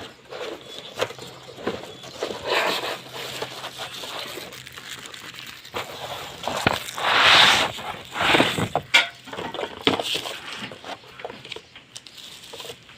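Packaging rustling and crinkling as it is handled and opened, with scattered clicks and knocks. The loudest crinkling burst comes about seven seconds in.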